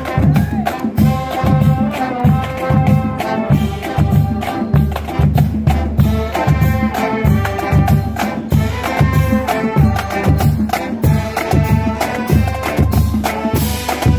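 Marching band playing a tune: brass carrying a sustained melody over a steady beat of bass drums and snare drums.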